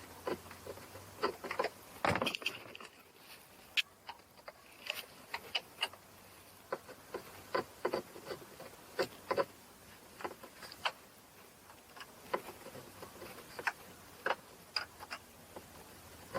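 Irregular small clicks, taps and rattles of hand work on a car's steering column: parts, fasteners and tools being handled during ignition switch removal, a little louder about two seconds in.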